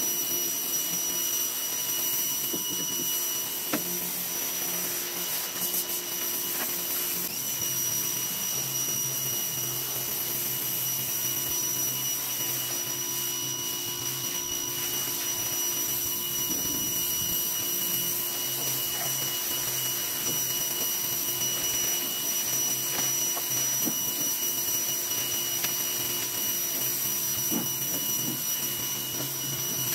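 Greenworks pressure washer running steadily, its motor and pump giving a constant whine and hum under the hiss of the water jet blasting grime off a pickup truck bed.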